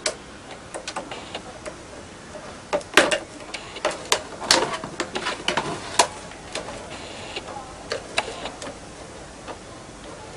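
Plastic snap-lock clips of a Samsung SyncMaster LED monitor's casing clicking and snapping irregularly as the casing is pulled apart by hand, with a cluster of louder snaps in the middle.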